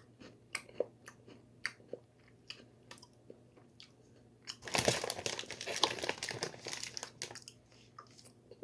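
Close-up crunching and chewing of Bourbon Alfort chocolate-coated biscuits, heard as scattered sharp crunches. About halfway through comes a dense crackling stretch of two to three seconds, like a plastic snack wrapper being crinkled.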